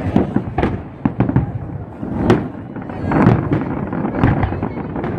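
Aerial fireworks display going off: a rapid, irregular run of bangs and crackling bursts over a low rumble, with the loudest reports about two and three seconds in.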